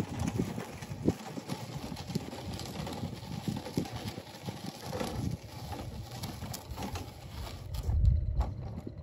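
A wood chipper, not running, wheeled across hard dry dirt: its wheels and body rattle and knock unevenly along with footsteps. A heavier low thump comes about eight seconds in.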